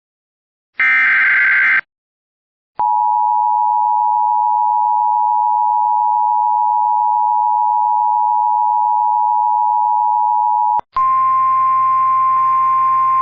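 Emergency Alert System activation. The last SAME header data burst, a buzzy digital screech about a second long, comes first. After a short pause, the steady two-tone EAS attention signal holds for about eight seconds. Near the end it cuts to a NOAA Weather Radio receiver's single, slightly higher alert tone over radio hiss and hum.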